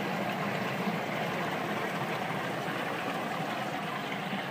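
Steady bubbling and running water from an aerated live-fish tank.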